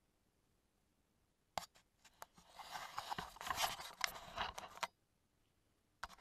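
Small metal parts and tools being handled: a sharp click, then about three seconds of jangling and scraping, then a couple of separate clicks near the end.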